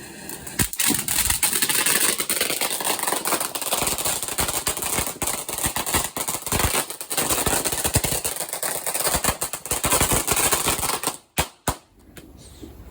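Fireworks crackling: a dense, continuous run of rapid small bangs and pops that stops suddenly near the end.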